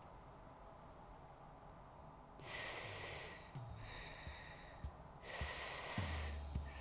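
Near silence, then about two and a half seconds in three breathy hissing bursts of about a second each, with low bass pulses and thuds starting under them about halfway through.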